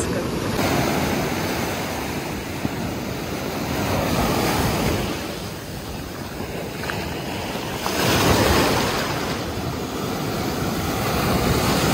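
Big ocean waves breaking and washing up the beach, with wind buffeting the microphone. The surf swells louder about four seconds in and again, loudest, around eight seconds in.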